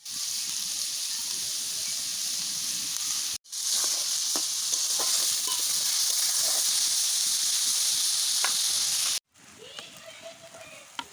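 Chopped onions frying in hot oil in a kadai: a steady sizzle with a few faint ticks, which cuts out briefly twice and is much fainter near the end.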